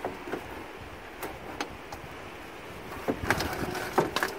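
A 1995 Pontiac Firefly's radiator being wiggled loose from the car's front end: its plastic end tank and core knock and scrape against the surrounding metal. Quiet handling noise at first, then a few sharp knocks and clatter in the last second or so.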